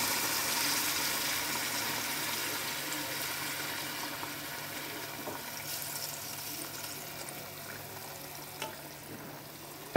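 Water pouring into a pot of mutton and onions frying in hot oil, with a sizzle that is loudest at first and fades steadily as the water cools the pan.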